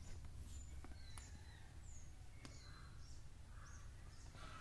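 Faint background bird chirps: several short, high calls scattered through, over a low steady hum, with a few soft clicks.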